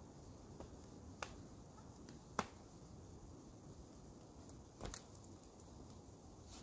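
A few faint, sharp scuffs and clicks of climbing shoes and hands on rock over a quiet background as a climber moves across the top of a boulder and climbs down off it. There are three short clicks in all, the second the loudest.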